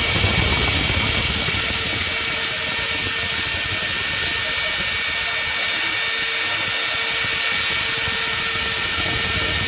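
CNC router spindle running steadily with a hiss and a high whine while it cuts a wooden flywheel pattern; a lower rumble fades about two seconds in.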